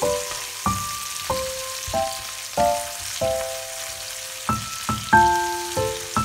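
Background music of slow, separate notes struck about every half second to second, over the faint steady sizzle of octopus, onion and tomato frying in oil in a pan.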